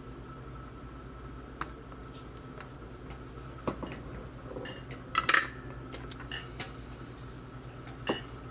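Small metal tools clinking and tapping on a workbench: scattered sharp clicks, with a louder rattling cluster about five seconds in, over a steady low hum.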